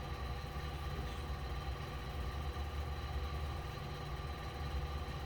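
Steady low machine hum, with a few faint steady tones above it.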